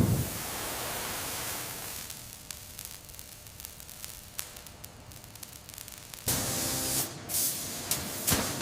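Steady hissing noise with scattered faint clicks, growing louder about six seconds in, with a few sharper ticks near the end.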